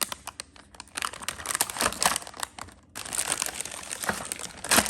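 Plastic packaging crinkling as the kit's packets and pieces are handled: a run of crackles with a short pause about three seconds in and a louder crinkle near the end.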